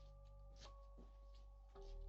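Faint background music of soft held notes that change pitch in steps, with a few faint ticks; near the end a lower note comes in and the music gets a little louder.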